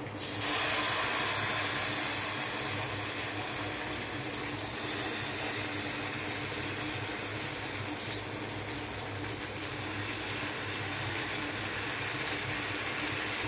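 Oats-chapatti batter sizzling in hot oil in a non-stick frying pan, a steady hiss that starts suddenly just after the start.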